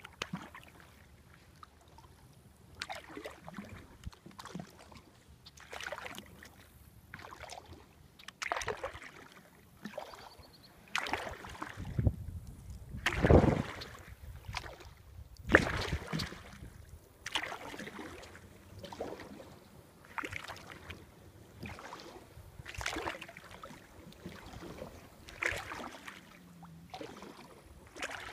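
Kayak paddle strokes in calm river water, the blade dipping and pulling on alternating sides about once every second or so. A few strokes near the middle are louder.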